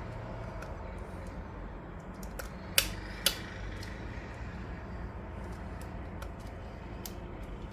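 Scattered small clicks and taps from handling the watch winder's plastic and metal parts and screws, with two sharper clicks close together about three seconds in, over a low steady hum.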